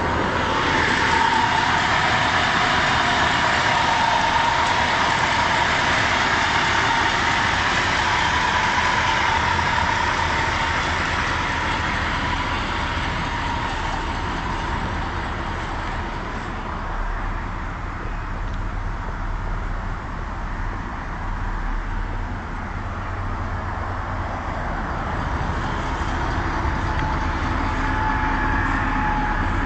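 1970 Chrysler Imperial's 440 cubic-inch V8 running steadily, recorded through a phone's microphone. A high whine over the engine sound makes it sound like a broken turbine engine, which the owner puts down to the poor recording equipment.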